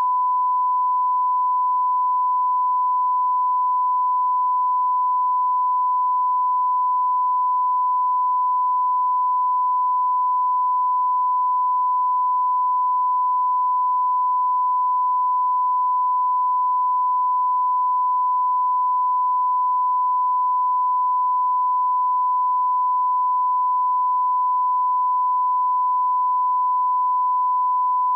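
Broadcast line-up test tone: one pure, unbroken steady beep at a single pitch. It is the reference tone that runs with colour bars at the head of a TV tape, used for setting audio levels.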